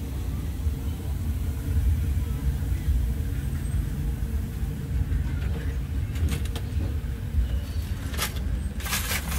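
A steady low rumble, over faint sizzling of a cheese corn dog in deep-fryer oil. A few sharp clicks come about two-thirds of the way in and again near the end.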